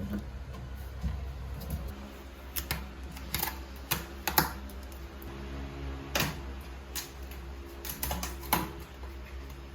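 About a dozen irregular light clicks and knocks, most of them in the middle, over a steady low hum.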